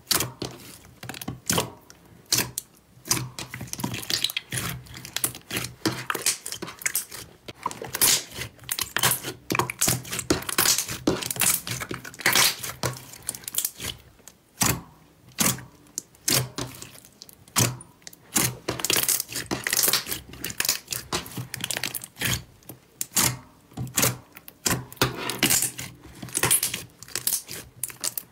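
Hands pressing, poking and pulling a large sheet of clear slime: a dense run of sticky crackles, pops and clicks as it is squeezed and stretched, with short lulls.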